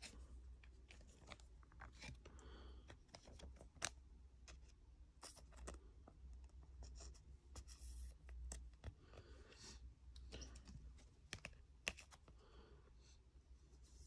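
Faint clicks, taps and rustles of hands handling a trading card and a clear plastic card holder, with a sharper click about four seconds in and another near twelve seconds, over a steady low hum.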